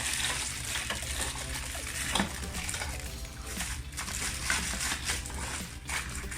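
Irregular rustling, small knocks and clicks of packaging and recording equipment being handled, over a steady low hum.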